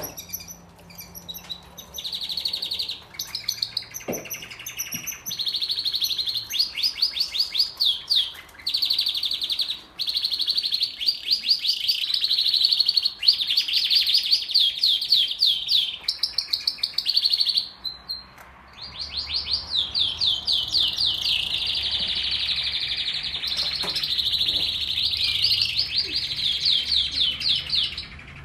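Male domestic canary singing: long, fast trills of rapidly repeated high notes strung into rolling phrases, with a brief break about two-thirds of the way through. This is the kind of song used to bring hens into breeding condition.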